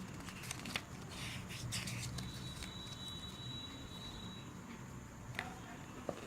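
Faint handling sounds of packaging: soft rustles and short clicks in the first couple of seconds, then two sharper clicks near the end, with a thin steady high tone held for about two seconds in the middle.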